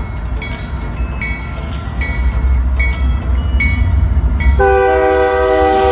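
Union Pacific freight locomotives passing close with a deep engine rumble while the locomotive bell rings about twice a second. About four and a half seconds in, the multi-note air horn sounds one long blast.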